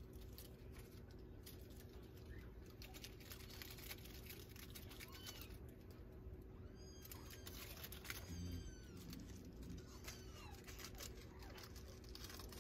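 Persian kittens mewing: a string of short, thin, high mews from about the middle onward, over faint scratchy clicks as they move about.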